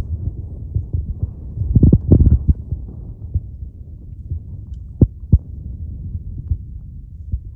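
Wind buffeting the microphone: a low rumble in gusts, strongest about two seconds in, with two short sharp knocks about five seconds in.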